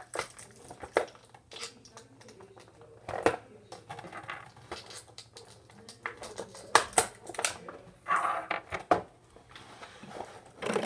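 Action-figure packaging being opened by hand: cardboard and plastic crinkling and rustling, with scattered sharp clicks and taps, the loudest about seven seconds in.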